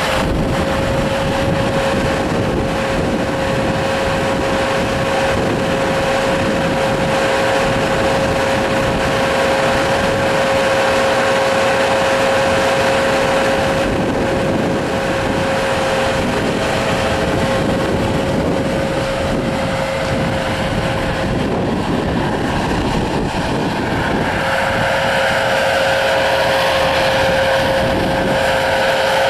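Bobcat S300 skid steer loader's diesel engine running steadily, with a steady high whine over the engine noise.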